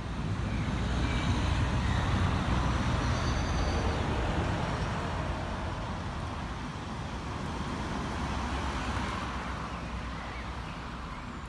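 Road traffic going by: a vehicle passes, loudest about one to four seconds in and slowly fading, with another, smaller swell of traffic noise near the end.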